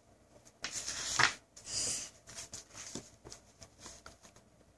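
Paper pages of a picture book rustling and flapping as they are turned, in several short, soft rustles.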